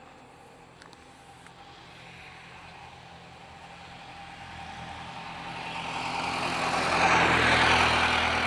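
A motor vehicle on the highway approaching, its engine and tyre noise growing steadily louder and loudest about seven to eight seconds in.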